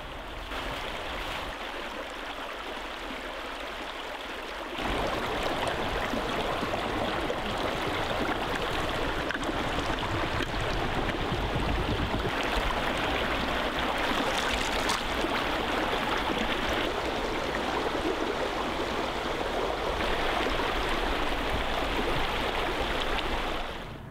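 Shallow, rocky creek flowing: a steady rush and babble of water, which gets louder about five seconds in and stays that way.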